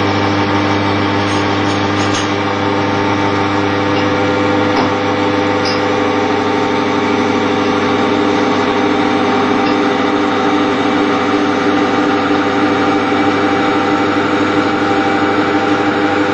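Belt-driven wear and friction test rig running steadily under load: its electric motor hums and the loaded test shaft gives a steady whine. There are a few faint clicks in the first five seconds.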